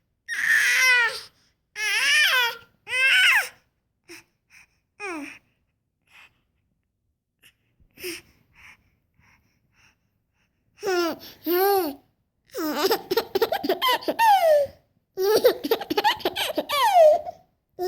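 A five-month-old baby squealing and babbling in high, gliding vocal sounds, then after a quiet pause, laughing in long runs of rapid bursts.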